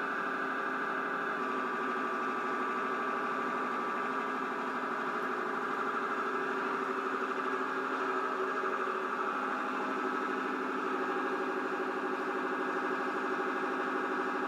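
An engine running steadily at an even speed, heard thin and without bass through a television speaker.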